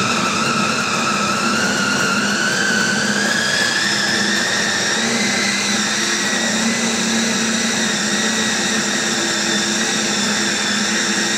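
Electric bowl chopper running continuously at full power, mincing raw chicken and zucchini to a paste. Its motor whine rises in pitch over the first few seconds, then holds steady.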